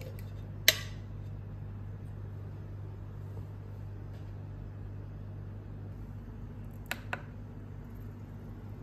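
A sharp click about a second in and two lighter clicks close together near the end, over a steady low hum.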